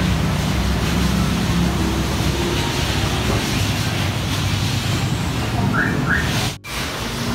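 Steady rumble of street traffic. Two short high chirps sound about six seconds in, and a moment later the sound briefly cuts out.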